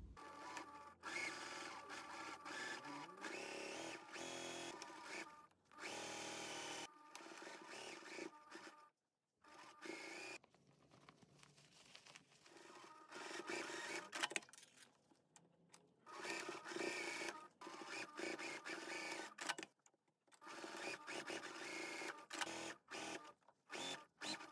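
Electric sewing machine stitching in a series of short runs of a few seconds each, stopping and starting abruptly several times.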